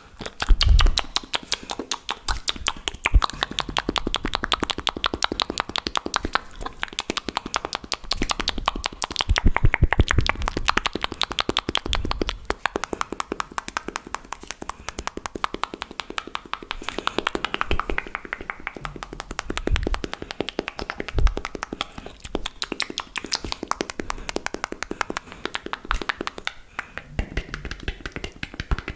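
Fast, wet mouth clicks and pops made close to the microphone, a rapid unbroken stream of many clicks a second with an occasional stronger pop.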